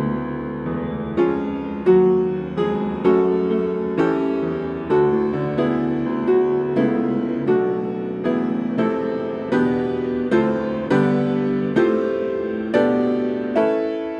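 Solo piano playing a slow, gentle piece, chords struck about once or twice a second and each left to fade. The last chord is struck shortly before the end and rings out.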